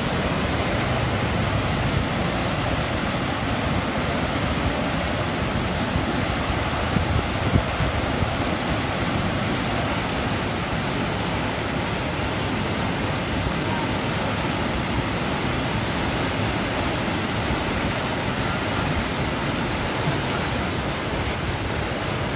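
Steady rushing of water pouring over a weir, with a few brief louder knocks about seven seconds in.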